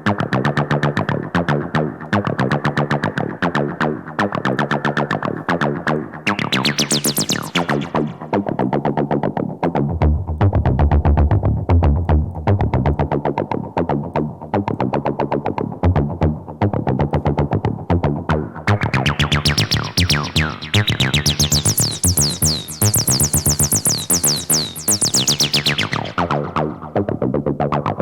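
A TB-303-style acid synth line of fast repeating notes, run through a distortion plugin with an envelope-modulated high-pass filter before the distortion. The tone shifts as the filter moves: a brief upward sweep about a quarter of the way in, a heavy low bass patch mid-way, and about two-thirds in it opens into a much brighter, harsher distortion before closing down again near the end.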